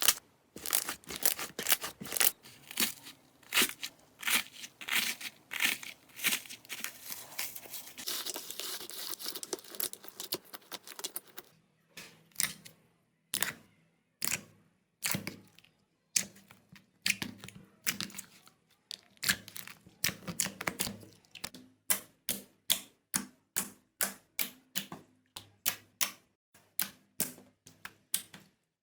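Slime being squeezed and pressed by hand, crackling and popping with sharp clicks. A denser crackle runs for a few seconds about a third of the way in, then separate pops come about two a second and grow faster near the end.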